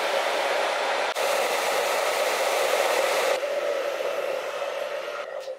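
Handheld hair dryer blowing steadily at full power with a strong hum at its core. There is a brief dip about a second in, the sound turns duller after about three seconds, and it stops near the end.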